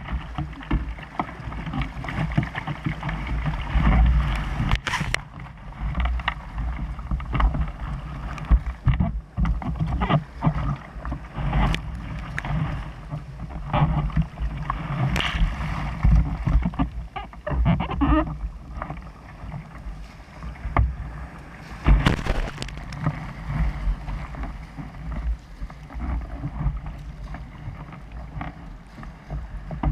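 Surf and whitewater rushing around a fishing kayak as it is waded and then paddled out through the shore break, with irregular paddle splashes and water hitting the hull. Heavy wind buffets the microphone throughout.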